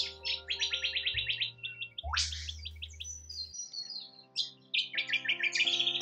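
Birds chirping in quick runs of high, repeated notes, with one call sweeping upward about two seconds in and a denser trill near the end, over soft background music of held notes.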